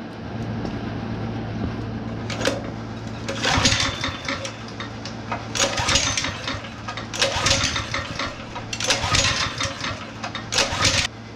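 Honda GX160 single-cylinder engine being pull-started: about six yanks on the recoil starter, each a short rasping crank, and the engine does not fire even with starting fluid in the intake.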